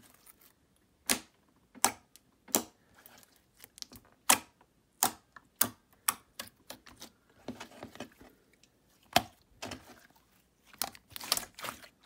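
Nickelodeon slime from a Cra-Z-Art bucket being squeezed and worked by hand, giving off its sharp, irregular clicks, with softer crackly squishing in between.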